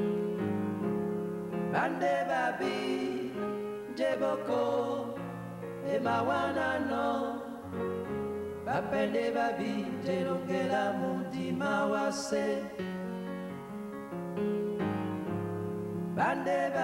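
Music: a group of voices singing over held keyboard chords.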